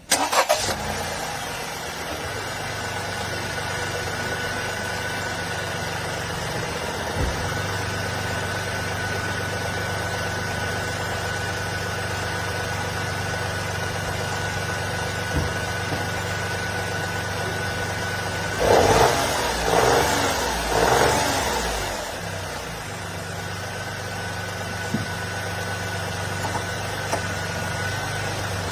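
Honda N-BOX Custom's three-cylinder kei-car engine idling steadily, with a thin, steady high whine over it for most of the time. It is revved in three short blips about two-thirds of the way through. The car is being run to find an abnormal noise that began after a stone struck it.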